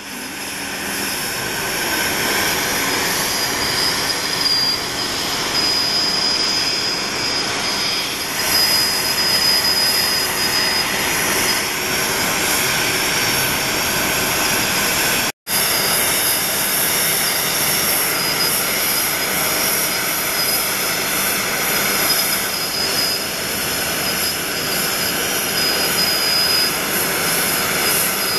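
Aircraft jet turbine running: a steady roar with high-pitched whining tones over it, dropping out for an instant about halfway through.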